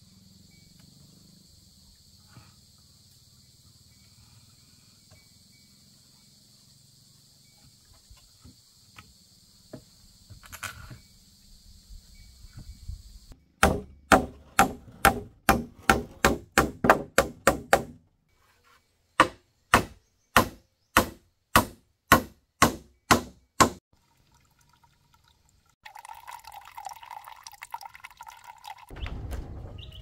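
A run of sharp, evenly spaced knocks at about four a second, then after a short break a slower run at about two a second, like repeated strokes on a hard surface. Before them there is a faint steady high-pitched drone with scattered light ticks.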